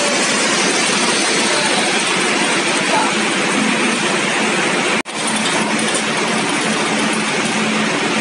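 Deutz 620 V12 engine running steadily, a loud, dense mechanical din. The sound drops out for an instant about five seconds in.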